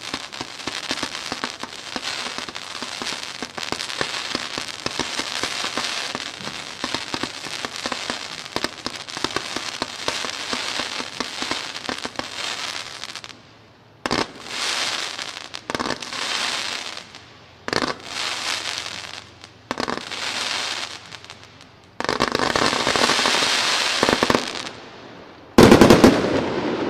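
Swinenado 182-shot consumer firework cake firing. For about the first half it gives a fast, unbroken stream of shots and crackle. After a short pause come four separate volleys about two seconds apart, then a dense barrage, and a final burst near the end that is the loudest of all.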